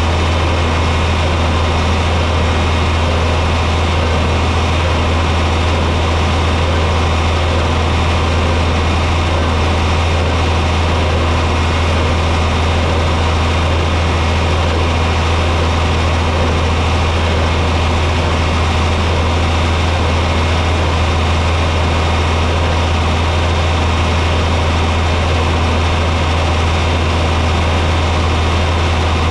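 John Deere 4020 tractor engine running steadily under load while driving a hay baler, a loud constant low drone.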